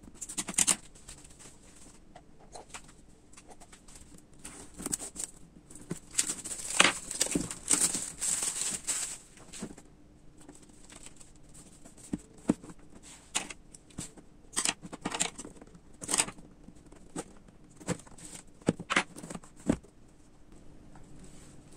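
Scissors snip at the wrapping of a boxed drone, then plastic wrapping crinkles and tears for a few seconds, the loudest stretch. After that come scattered taps, scrapes and rustles as the cardboard box is handled and its lid is lifted open.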